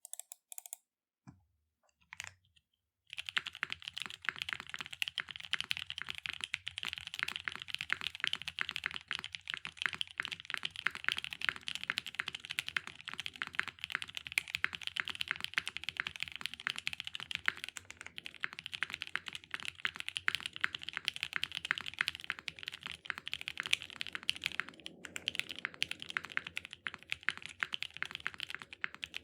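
Custom 60% mechanical keyboard (CKC Aksara 60, top-mounted polypropylene plate, no dampening) with lubed and filmed Milkytop Creamsicle switches and GMK keycaps, being typed on. A few single keystrokes come first, then fast, steady typing from about three seconds in.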